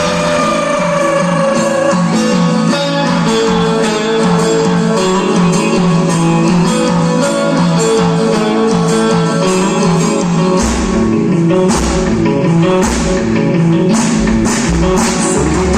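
Live rock band playing an instrumental break of a Nepali song, with guitar to the fore over a steady drum beat. The low end fills out about eleven seconds in.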